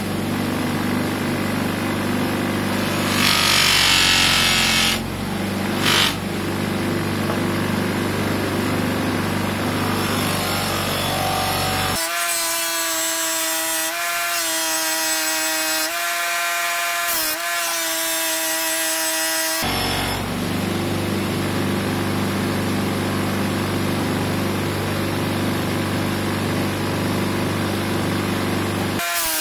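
Bench grinder motor running with a buffing wheel, a brass bell pressed against the wheel and rubbing on it as it is polished. The rubbing is loudest about three to five seconds in. In the middle stretch the low hum gives way to a few higher, wavering tones.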